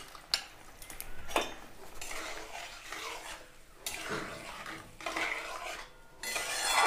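A spatula stirring and scraping thin gravy in a metal kadai, with a few sharp clinks of the spatula against the pan. The scraping gets louder near the end.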